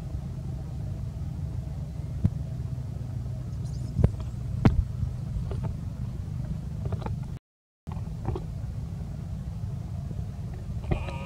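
Steady low outdoor rumble with a few sharp clicks, cutting out for half a second about two-thirds of the way through, and a brief high-pitched squeal near the end.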